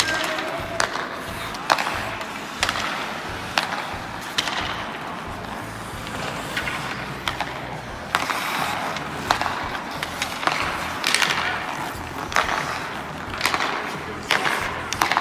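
Ice hockey practice: skate blades scraping and carving on the ice, with sharp cracks of sticks hitting pucks about once a second.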